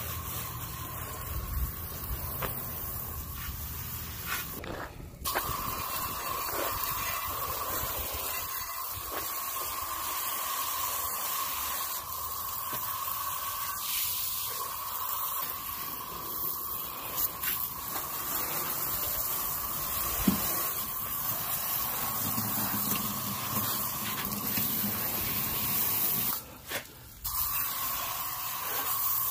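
Garden hose spray nozzle blasting water onto a side-by-side UTV's body panels, tyres and suspension, a steady hiss and splatter that breaks off briefly twice.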